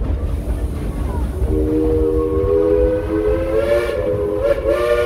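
Steam locomotive whistle blowing one long blast of several notes at once, starting about a second and a half in and wavering briefly near the end before it carries on. Under it runs the low rumble of the train cars rolling on the track.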